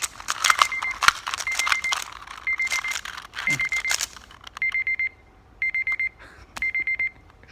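Digital timer alarm beeping: short high beeps in quick groups of about four, repeating once a second. Over the first half, a rapid clicking clatter of a Rubik's cube being turned quickly.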